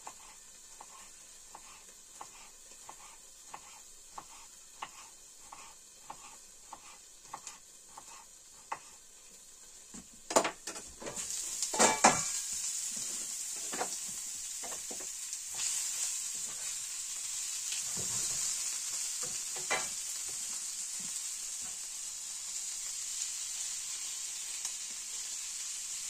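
Knife chopping cucumber on a wooden cutting board, about two cuts a second, over a faint sizzle. About ten seconds in, a few loud clatters as the lid comes off the frying pan, and then the sizzling of potatoes and meat frying in the pan is loud and steady, with the odd scrape of stirring.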